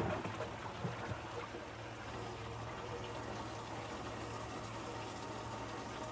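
Steady trickle and splash of water from a bass boat's open livewell, with a low hum running under it, typical of the livewell pump. A thump right at the start and two light knocks about a second in, as fish are handled in the well.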